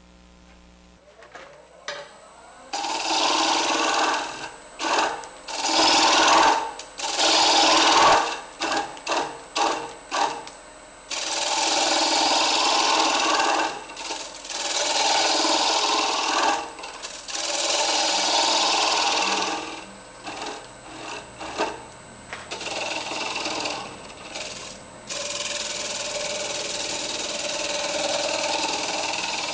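Bowl-turning tool (a bottom feeder) cutting the inside of a wooden bowl spinning on a lathe: a series of cutting passes, each lasting one to a few seconds, with shavings tearing off, over a thin steady high whine from the lathe that starts about a second in.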